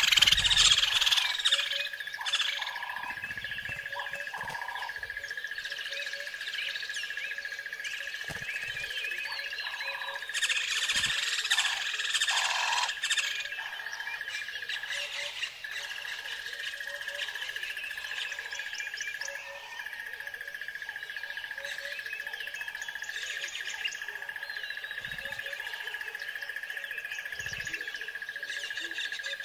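Birds chirping and calling, busiest about ten seconds in, over a steady high tone that runs throughout.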